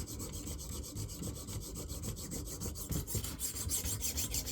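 A 300-grit sharpening stone on a KME guided sharpener scraping back and forth along the steel edge of a thin fillet knife in quick, rhythmic strokes.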